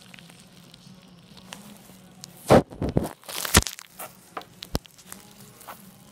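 Close handling noise: a cluster of sharp knocks and crinkling plastic rustles from about two and a half to five seconds in, the loudest near the start of the cluster, as a plastic-gloved hand reaches toward a Shiba puppy. A low steady hum runs underneath.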